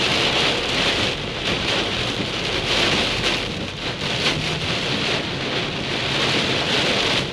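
Heavy rain falling steadily in a thunderstorm, a dense even hiss.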